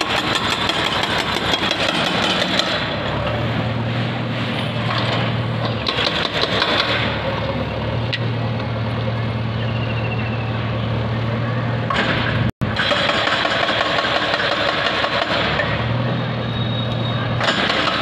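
Construction-site noise: a machine engine running steadily at a low hum, with scattered knocks and clatter over a general din.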